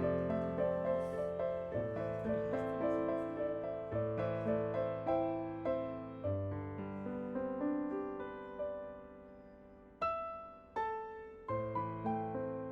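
Background music: a gentle piano melody, with a short lull before fresh notes about ten seconds in.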